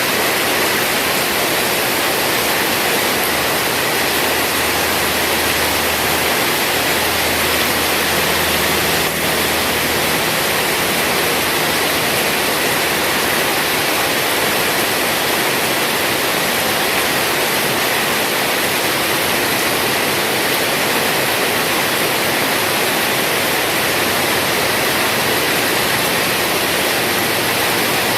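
Heavy rain falling, a steady dense hiss without a break.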